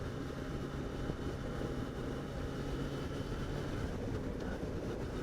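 Yamaha FZ6's 600 cc inline-four engine running steadily at low revs, close to idle.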